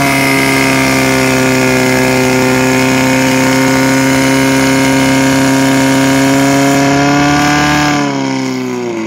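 Portable fire pump engine held at full revs while it pumps water out through the attack hoses, a steady high-pitched drone. About eight seconds in, it is throttled back and the pitch falls.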